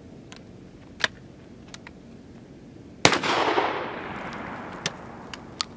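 A Henry single-shot 12-gauge shotgun with a rifled slug barrel fires once, about three seconds in: a sharp blast followed by a long echo that fades over a second or so. A few sharp clicks come about a second in and again near the end.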